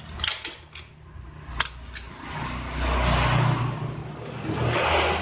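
Sharp plastic clicks and taps as the snap-fit top cover of a router case is pried off, in the first two seconds. Then a low rumbling rush of background noise swells and fades twice.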